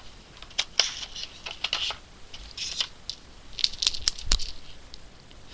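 Derwent Graphik Line Painter paint-marker pens being drawn out of and handled against their cardboard box: irregular light plastic clicks with brief scraping and rustling between them.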